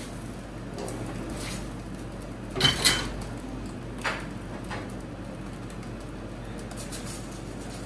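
Kitchenware clattering at a food stall: a few sharp clinks and knocks, the loudest two close together just under three seconds in and another about a second later, over a steady low hum.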